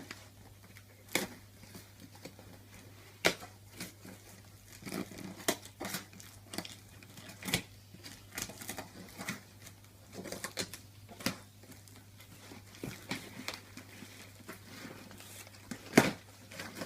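Irregular knocks, clicks and crinkling of a cardboard box and its packaging being handled and pulled open, with a few sharper knocks among them.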